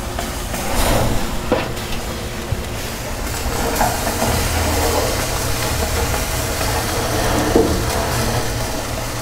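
Fat and barbecue sauce dripping from hanging chickens and sizzling on hot charcoal and cherry-wood embers, over a low steady rumble, with a few faint clicks.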